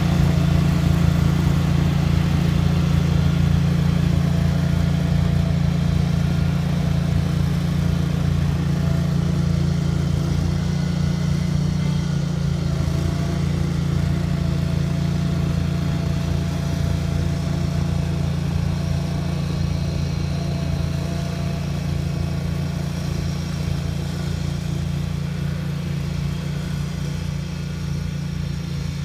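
Cub Cadet garden tractor's engine running steadily under load, driving a front-mounted snow thrower as it blows snow. It grows gradually fainter as the tractor moves away.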